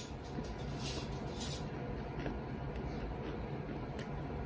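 Quiet chewing of a breaded fried shrimp, with a few faint crunches in the first second and a half over low room noise.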